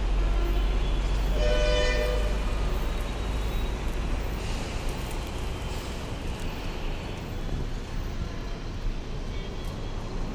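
Urban traffic noise with one short vehicle horn toot about one and a half seconds in. A deep rumble under it fades away about halfway through.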